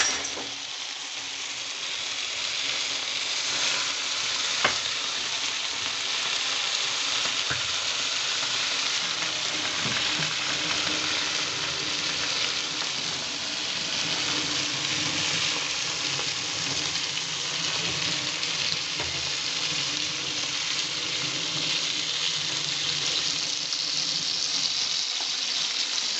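Food frying and sizzling steadily in a hot pan, with one sharp clack about five seconds in.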